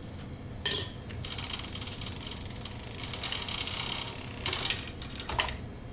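Bicycle freewheel clicking rapidly for about three seconds as the drivetrain turns, after a sharp click; a few separate clicks follow near the end.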